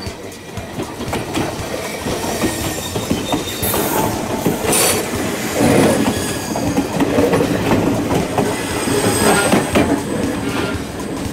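Enoden (Enoshima Electric Railway) 1000-series electric train passing close by. Its wheels clatter over the rail joints, with a high metallic squeal from the wheels; it is loudest around the middle of the pass.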